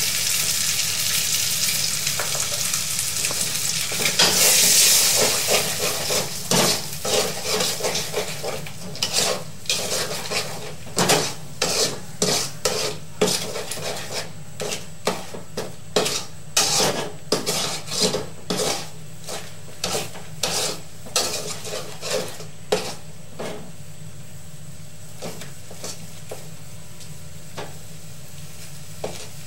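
Eggs sizzling in hot oil in a metal wok. After a few seconds a metal spatula starts scraping and knocking against the pan as the eggs are scrambled, one or two strokes a second over the frying sizzle, easing off near the end.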